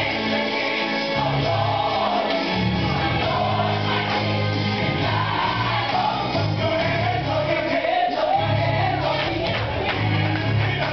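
Gospel song with a choir singing over a steady, pulsing bass line.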